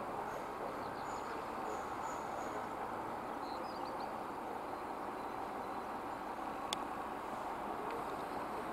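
ChME3 shunting diesel locomotive running as it moves slowly through a station, heard as a steady distant rumble, with a few bird chirps and one sharp click about two-thirds of the way through.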